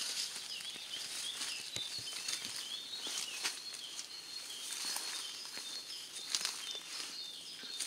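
Light, irregular pattering and rustling of leaves in woodland undergrowth, with faint high chirps recurring throughout.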